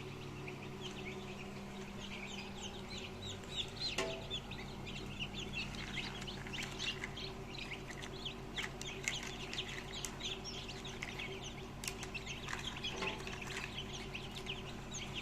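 Many newly hatched chicks peeping at once: a dense, continuous stream of short high cheeps over a steady low hum.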